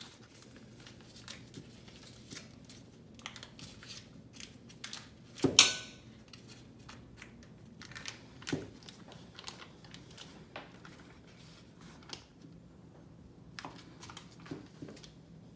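A butter stick's paper wrapper rustling and crinkling as it is peeled open by hand, in scattered small crackles with one louder, sharper crinkle about five and a half seconds in.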